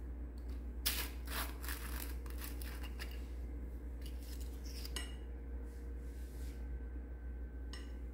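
Small plastic glitter jar being opened by hand: the screw cap twisted off with a quick run of clicks and scraping, then single sharp plastic clicks as the cap and insert are handled.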